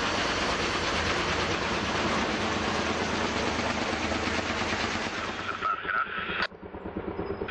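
Kaman K-MAX helicopter flying low overhead with a log on its long line: loud, rapid rotor chop over turbine noise. About six seconds in the sound drops abruptly to a quieter, thinner one.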